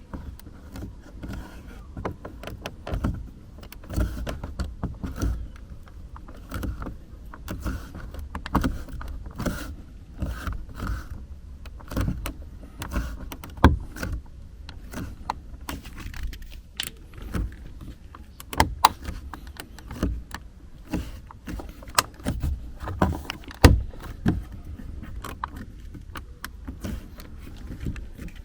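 Plastic parts of a Skoda Kodiaq's interior door grab handle being fitted back into the door trim: irregular clicks and knocks as the pieces are handled and the plastic clips are pushed into place.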